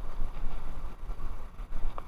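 Wind buffeting the microphone: a gusty low rumble that rises and falls.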